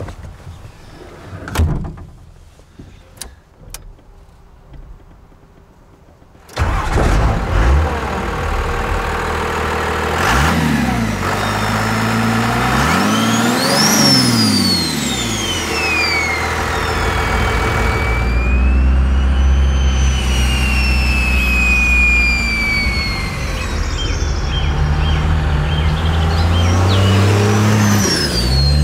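Cummins 5.9-litre inline-six turbodiesel: a few sharp clicks, then the engine fires up suddenly about six seconds in. It is revved up and down a few times, the turbocharger whistling as it spools up and winds down, and then runs steadily under load.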